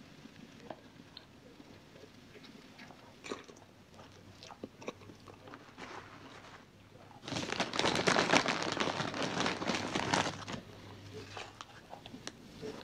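Someone eating chips from a plastic container: scattered small clicks of a plastic fork and container with soft chewing, then, about seven seconds in, loud crunching that lasts about three seconds.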